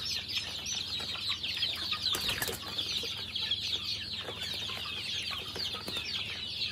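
A flock of young chickens peeping without pause, many short, high, falling cheeps overlapping into one steady chatter.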